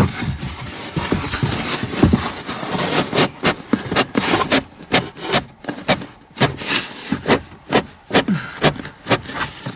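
Molded styrofoam trim piece being pressed and wriggled back into place by hand: squeaking, rubbing foam with a run of sharp clicks and knocks that come thicker after about three seconds.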